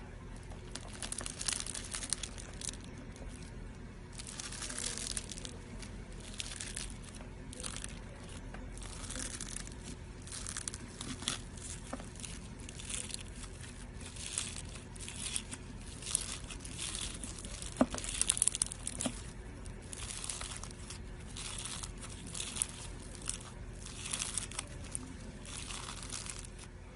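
Slime being squeezed and worked by hand, giving a run of short, hissy, crinkly squelches at an uneven pace of about one a second, with one sharper snap about two thirds of the way in.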